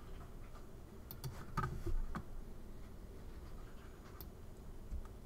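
A few faint, separate clicks from a computer mouse and keyboard being worked, over a low steady hum.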